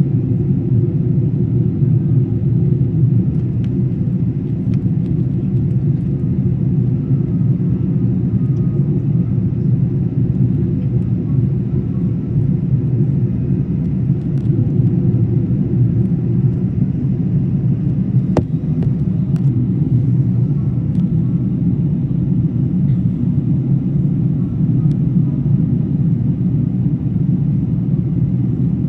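Steady low rumble of an Airbus A380 in flight, as heard inside the cabin: constant engine and airflow noise that does not change.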